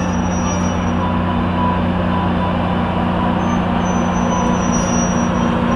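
Diesel locomotive of a Metrolink passenger train running at the platform: a steady, loud, low engine drone with no change in pitch.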